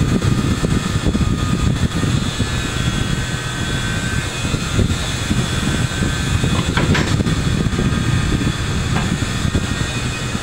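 Large industrial fan running steadily, a loud, even noise heavy in the low end, with a light clink about seven seconds in.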